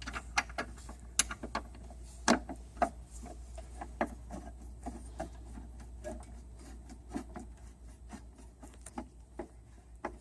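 Screwdriver driving a screw into the plastic of a picnic table's support brace: irregular clicks and scrapes, about one or two a second, as the screw is turned and bites into the plastic.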